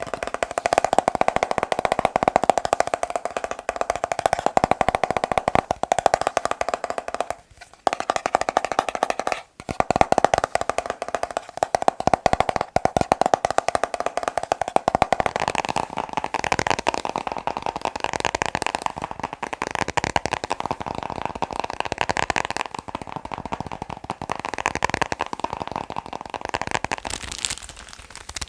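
Rapid, continuous tapping on hard objects, many taps a second, with a ringing tone from the tapped surface. The tapping breaks off briefly twice, about seven and nine and a half seconds in, and its tone shifts higher in the second half.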